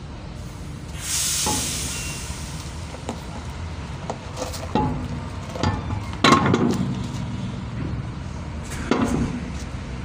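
Heavy steel truck wheel being worked by hand onto its hub studs: a few dull metal knocks and clunks, the loudest about six seconds in, with a brief hiss about a second in. A steady low rumble runs underneath.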